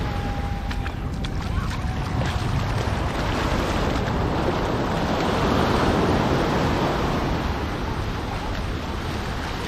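Wind buffeting the microphone over the rush of surf, swelling to its loudest about six seconds in and easing off after.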